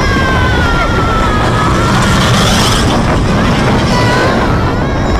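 Loud, steady outdoor crowd ambience: a low rumble like wind on the microphone, with the chatter of a packed crowd and faint music in the background.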